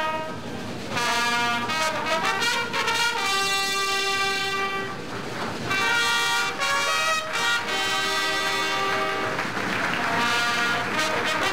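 Fanfare corps of trumpets playing a fanfare: held brass chords in phrases, with short breaks between them about a second in and again around the middle and near the end.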